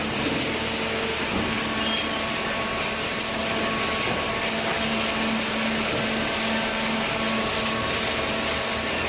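Small hydraulic cardboard baler running: a steady mechanical din with a continuous hum.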